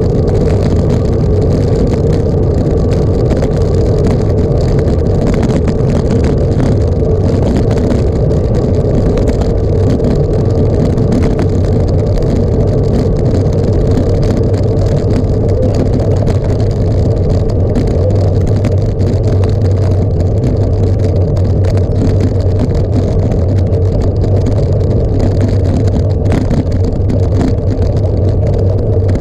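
Steady, loud wind rumble on the microphone of a camera carried on a moving ride, with no let-up.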